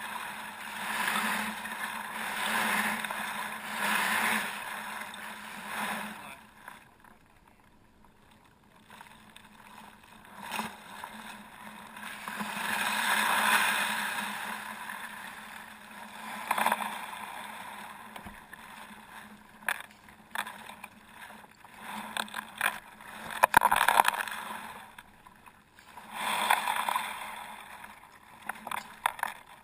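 Kayak paddle strokes splashing in the water, in an even rhythm for the first several seconds, then a lull and another stroke. Later come several sharp knocks and clacks, the loudest a little past the middle.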